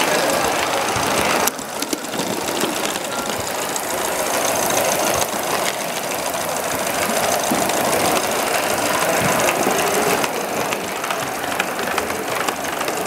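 Large-scale model steam locomotive running along the layout track, giving a fast, even mechanical beat with rail clatter. The level drops suddenly about a second and a half in and then holds steady.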